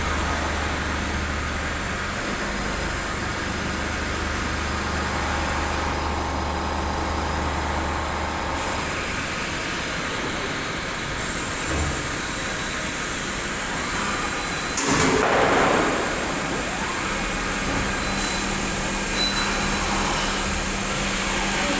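Auto-loading CNC machine running: a steady mechanical hum with faint high steady tones, and a louder rushing burst about fifteen seconds in.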